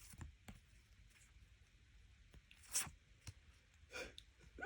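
Faint handling of photocards and their packaging: soft scattered clicks and rustles, with a short hiss-like burst just under three seconds in and a smaller one about a second later.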